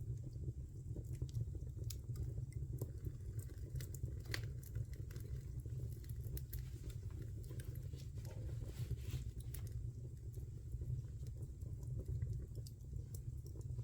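Wood fire crackling in a fireplace: irregular sharp pops and snaps over a low, steady rumble of the flames, with a denser flurry of crackle just past the middle.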